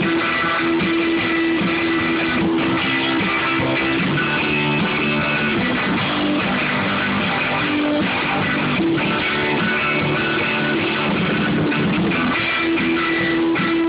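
A rock band playing, led by electric guitar with sustained chords.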